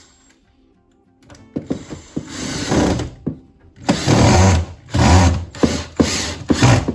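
Power tool running in about six short bursts, the first lasting around a second and a half, the rest half a second or less in quick succession near the end.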